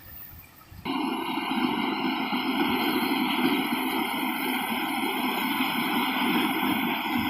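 Rice combine harvester running under load, a loud steady engine and machinery noise that starts abruptly about a second in.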